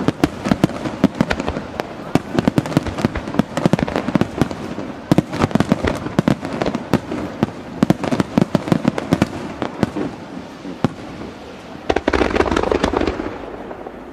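Aerial fireworks shells bursting in rapid succession, a dense stream of sharp cracks and reports echoing off the surrounding mountains. About twelve seconds in comes a louder, deeper burst with a low rumble, which then fades.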